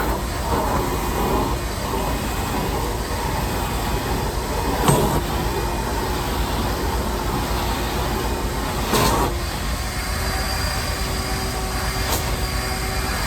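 Shop vac running steadily, with a few short knocks about five, nine and twelve seconds in.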